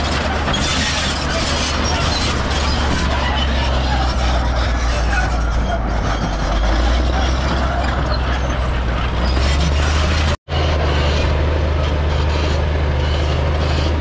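Heavy diesel earthmoving machinery working: a steady low engine drone with a dense clattering noise over it. The sound drops out for an instant about ten seconds in, then carries on.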